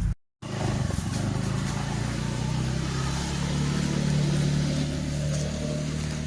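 A motor vehicle engine running steadily, a low hum that rises a little in pitch midway. It follows a brief dropout in the sound at the very start.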